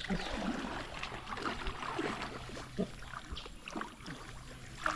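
Water splashing and sloshing as hands and feet move through shallow water while catching fish.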